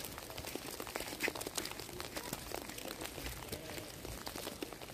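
Footsteps crunching through wet snow and slush, with dense irregular crackling and a few soft low thuds.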